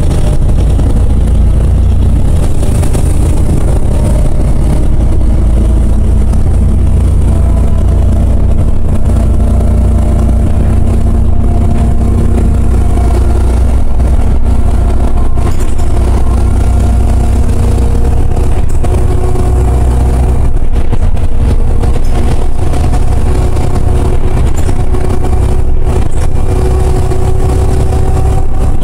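Interior noise of a LiAZ 5292.60 city bus underway: a heavy, steady low rumble from the engine and running gear. Engine and transmission tones slowly rise and fall as the bus gathers speed and eases off.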